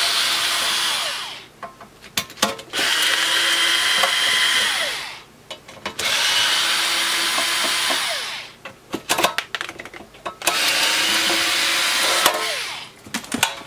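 Cordless electric screwdriver running in four short bursts of two to three seconds each, driving out the screws that hold the fan shroud of a metal power-supply case. Small clicks and knocks of handling sound between the runs.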